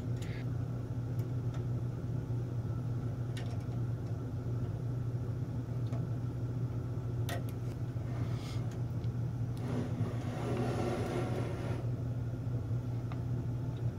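Steady low background hum, with a few faint metallic clicks as small pliers work a locking nut on a timing-pulley bolt. About ten seconds in comes a couple of seconds of louder noise.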